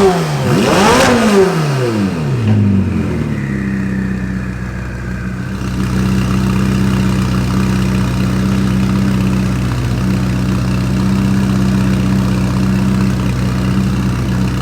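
Ferrari 488 Pista's twin-turbo V8 through an iPE titanium exhaust, revved twice in quick succession at the start. The revs then fall away and it settles into a steady idle.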